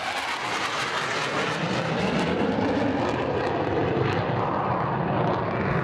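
Jet noise from the English Electric Canberra PR9's twin Rolls-Royce Avon turbojets as it flies past and climbs away, a steady roar with a low rumble that builds from about two seconds in.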